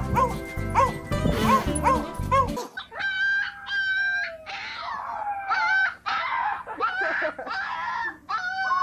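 Background music with a repeating bouncing melody for about two and a half seconds, then it cuts off and a dog gives a run of high-pitched whining howls, each cry gliding in pitch.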